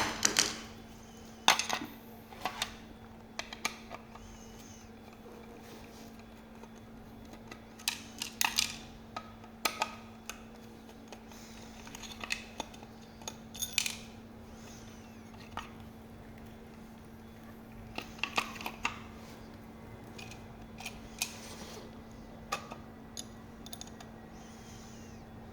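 Scattered clicks and clinks of tools and small fasteners being handled while a rear fender is taken apart, coming in short clusters every second or two over a steady low hum.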